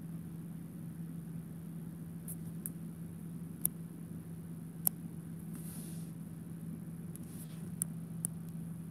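A steady low hum, with about six sharp, separate clicks scattered through it and a brief hiss about six seconds in.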